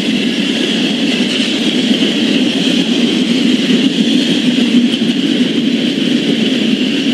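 Double-stack container cars of a CSX intermodal train rolling past on the rails, a steady, even noise of wheels on track as the tail end of the train goes by.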